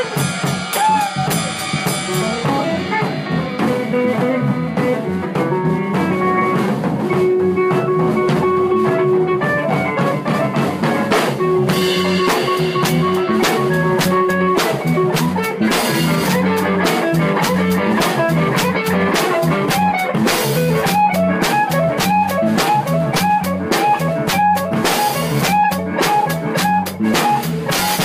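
Live blues band playing an instrumental passage: a guitar lead of held and bent notes over a drum kit. In the second half the guitar moves to quick, repeated bent notes.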